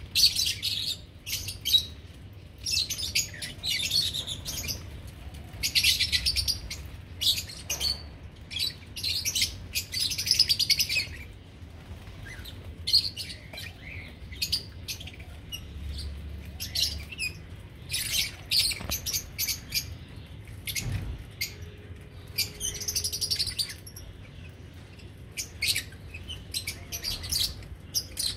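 Pet lovebirds chirping and chattering: clusters of quick, high-pitched chirps, one after another, with short pauses between them.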